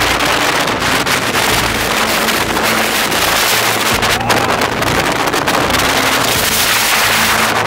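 Bora wind blowing hard across the microphone at storm force: a loud, continuous rush of wind noise with low buffeting rumble.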